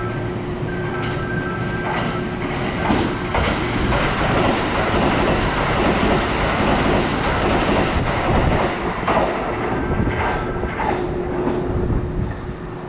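A Kintetsu 80000 series Hinotori limited express passes through the station without stopping: a rush of wheel and running noise that builds about three seconds in and fades near the end, with sharp wheel clacks over rail joints. A steady electronic tone sounds over it at the start and again near the end.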